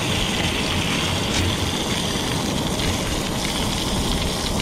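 Boneless bluegill fillets sizzling in hot oil in a pan: a steady, loud hiss, with an uneven low rumble beneath it.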